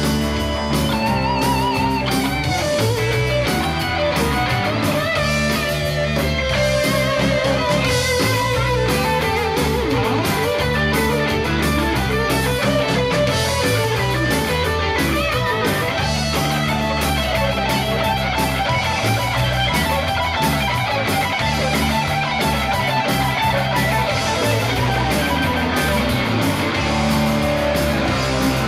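Live rock band with two electric guitars and drums, a lead guitar playing wavering, bent notes over the rhythm.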